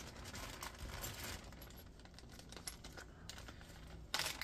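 Faint rustling of a clear plastic packaging bag being opened, with small clicks and clinks of the metal tools inside, and a louder crinkle near the end.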